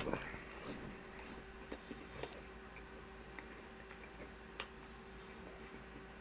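Faint chewing of food, with a few soft clicks and squishes scattered through.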